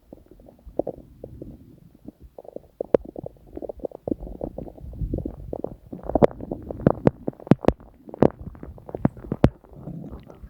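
Human stomach and intestines gurgling: a run of low, bubbly gurgles and sharp pops that grows busier and louder in the second half.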